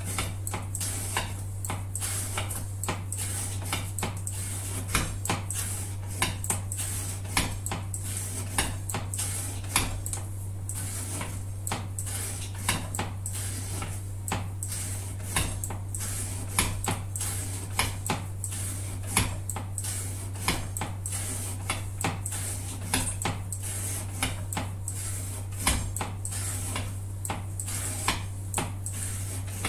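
Knife blade of CPM 125V steel in a repeated cutting test: an irregular stream of sharp clicks and knocks, a few a second, over a steady low hum.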